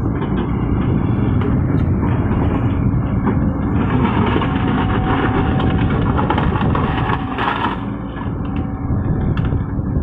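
Heavy diesel engine running steadily, getting harsher and louder for a few seconds in the middle before settling back.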